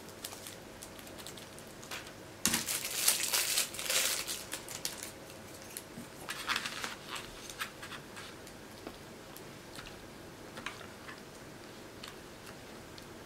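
A small plastic wrapper being crinkled and torn open by hand, loudest in a run of crackling from about two and a half to four and a half seconds in, with a shorter burst near six and a half seconds and a few small clicks between.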